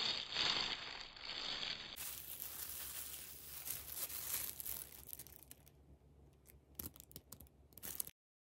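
Thin clear plastic disposable gloves crinkling and rustling as the hands move, loudest in the first couple of seconds, then softer handling with a few sharp clicks near the end.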